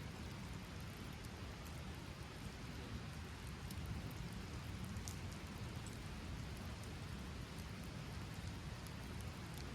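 Steady rain falling, with scattered light ticks of single drops.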